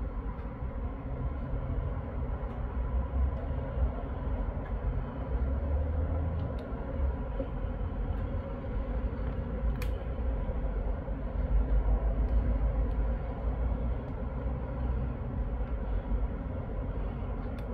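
Steady rumble of road traffic with cars, vans and lorries passing. The low rumble swells around six seconds in and again around twelve seconds in, and there is a single sharp click a little before ten seconds.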